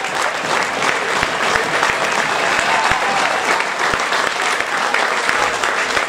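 Football crowd applauding the players off at full time: many hands clapping steadily.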